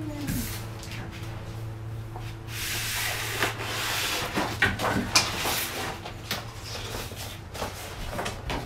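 A large paper poster rustling and crackling as it is peeled off a door and handled, loudest about halfway through.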